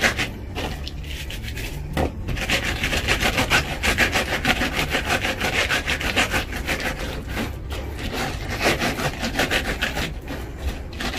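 Raw okra pods rolled back and forth under the palms with coarse salt on a cutting board: a quick, scratchy rubbing that eases off briefly near the start and again near the end. This is salt-rolling (itazuri), which strips the fine fuzz from the pods.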